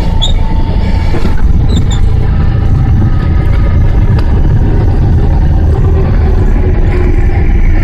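Small plane's engine and rushing air making a loud, steady low rumble as it lands.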